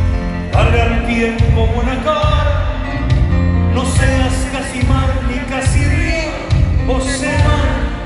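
Live band playing a ballad through an arena sound system, with a male singer's voice entering about half a second in over a steady, heavy low beat.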